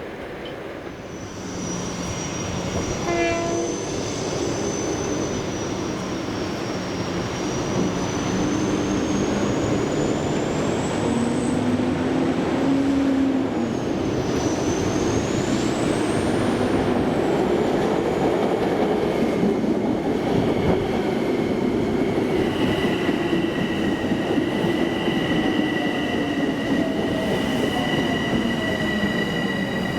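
Long Island Rail Road train passing on the mainline, with a short horn toot about three seconds in. The rail and wheel noise grows louder from about eight seconds in. A high whine rises and falls through the first half, and steady high-pitched tones sound from about twenty seconds on.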